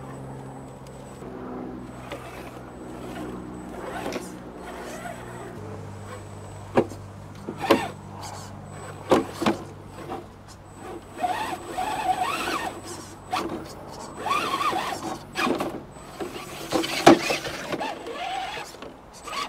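FTX Outback Fury 2.0 RC crawler's electric motor and gears whining as it drives, a steady whine that drops in pitch about six seconds in, then rises and falls with the throttle. Sharp knocks and clatters come through it, the loudest near the end.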